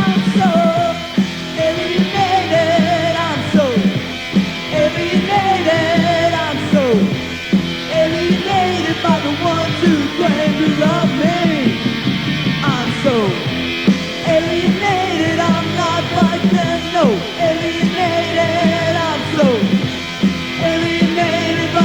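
Pop-punk band on a home-made demo tape recording, playing at full volume, with a lead line that bends and wavers in pitch over the band.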